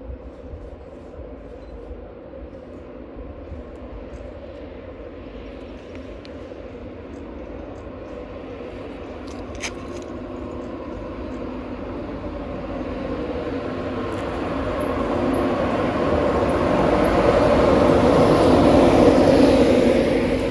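A train approaching, its steady engine note and rail noise growing louder through most of the stretch until it peaks near the end, then beginning to fall away.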